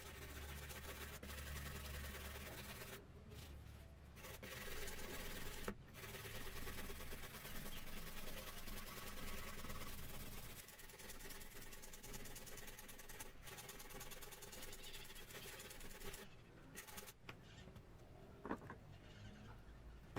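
Faint, steady rubbing and scraping of hand work on a metal plate, with a few short breaks.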